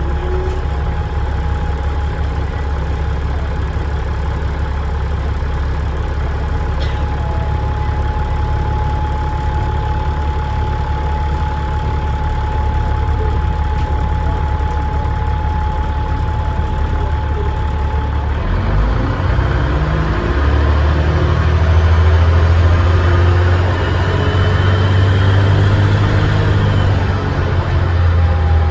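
Dennis Trident double-decker bus's diesel engine heard from inside, idling with a steady high whine. About two-thirds of the way through it revs up and pulls away, louder, with the turbo whistle rising.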